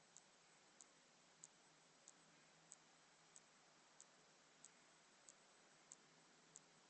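Near silence, with faint, evenly spaced ticks about one and a half times a second.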